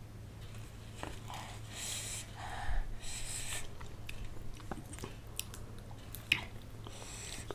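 Close-miked mouth sounds of a woman licking and sucking a lemon piece: short wet sucking bursts, then a few sharp lip and tongue clicks.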